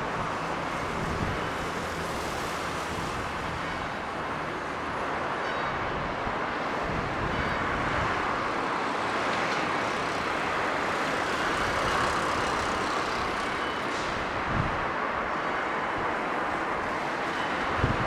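Daytime city-avenue traffic: a steady wash of passing cars, buses and trucks, swelling and easing as vehicles go by, with a few short thumps.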